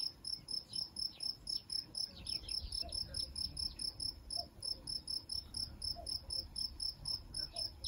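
A cricket chirping steadily, about five short high chirps a second, with a faint low rumble underneath.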